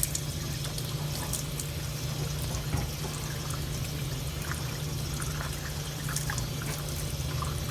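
Water running steadily over a steady low hum, with scattered light clicks and knocks.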